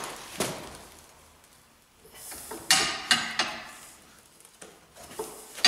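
Thick steel strip clanking and scraping against a bench vise as it is shifted and bent by hand: one knock near the start, a quiet second, then a quick run of sharp metal clanks with lighter ones near the end.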